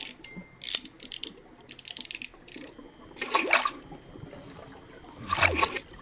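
Liquid sound effects: short bursts of fizzing hiss, then two louder gulping splashes about three and a half and five and a half seconds in, as figures sink into a cup of tea.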